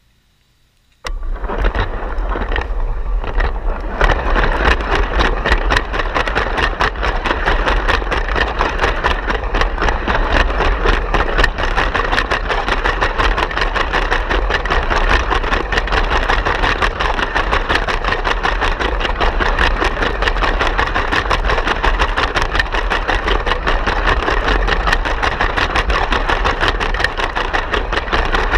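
A Lego train's small electric motor running, heard up close through the camera riding on the train: a loud, steady buzz with rapid clicking, switched on suddenly about a second in.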